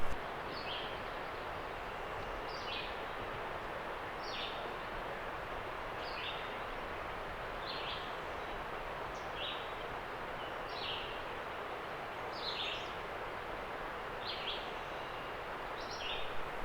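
A songbird calling over and over, a short two-note phrase about every second and a half to two seconds, over a steady rushing background noise.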